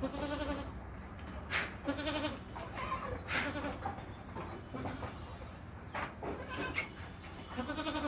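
Assam Hill Goats bleating in short, quavering calls: one at the start, two around two to three seconds in, and one near the end. A few short, sharp noises fall between the calls.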